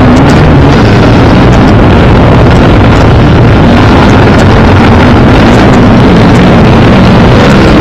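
Motocross sidecar outfits' engines running hard on the track, a loud, continuous engine drone whose pitch rises and falls.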